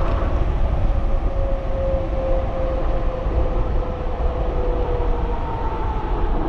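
Wind rumbling on the microphone of a moving 3,000-watt electric bike, with a steady whine from the bike's hub motor that sinks slightly in pitch and fades about five seconds in.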